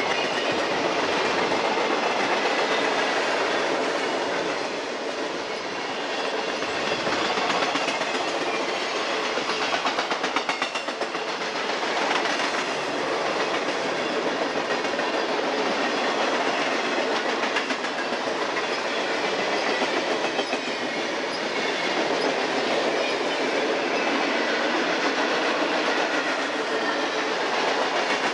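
Freight train cars rolling past: a steady rumble of steel wheels on rail, with a spell of rhythmic wheel clicks over the rail joints about a third of the way in.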